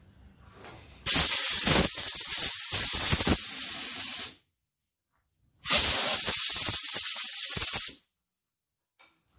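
Two long hissing blasts from a handheld spray or air nozzle aimed at the lathe's drill chuck and bar end. The first starts about a second in and lasts about three seconds; the second, about two seconds long, comes after a short pause.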